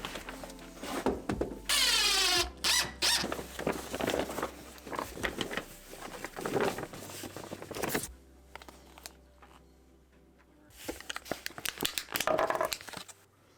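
Work noises from fastening a tarp over a ceiling attic opening with screws and magnets: a brief whine falling sharply in pitch about two seconds in, then a run of clicks and knocks, and another cluster of clatter near the end.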